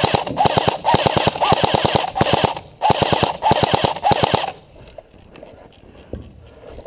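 Airsoft electric rifle firing full-auto in several rapid bursts of about a dozen shots a second, with short breaks between them, stopping about four and a half seconds in.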